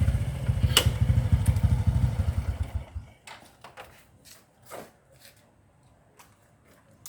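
A small engine or motor running with a rapid low throb, which stops suddenly about three seconds in; a sharp click sounds near the start, and faint clicks and knocks follow.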